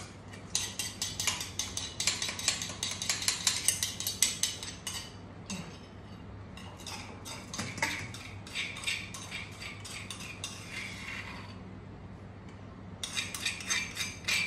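A metal spoon scraping and clicking rapidly against the inside of a small mortar as chili paste is scooped out, in three spells with short pauses between.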